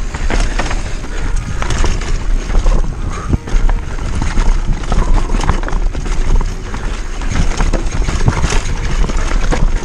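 Downhill mountain bike descending a dirt trail at speed: tyres rolling over dirt with a steady run of clattering knocks from the bike over the bumps, and wind rumbling on the microphone.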